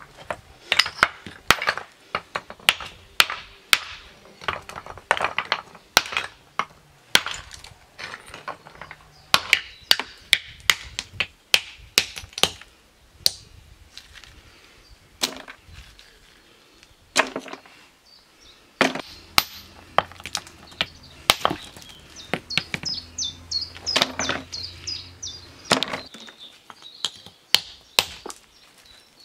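Hand tool striking over and over: a quick run of sharp blows, about two a second, then slower, spaced blows after about thirteen seconds.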